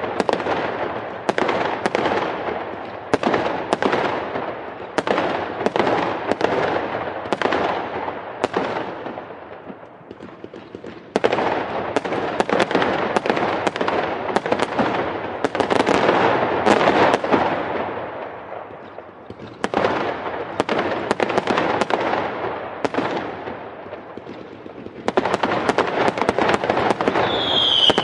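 Fireworks going off in dense volleys of sharp bangs and crackling, easing off twice into a quieter lull before building again. Near the end a short falling whistle sounds over the bangs.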